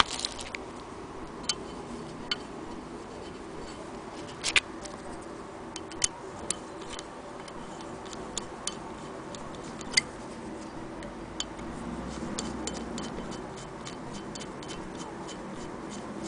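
Scattered sharp clicks and small taps of metal and wooden parts being handled, with a screwdriver working at the wooden handle on the cast-iron hand-crank wheel of a Willcox & Gibbs sewing machine. The clicks come irregularly, the loudest about four and ten seconds in, with a closer run of small ones late on.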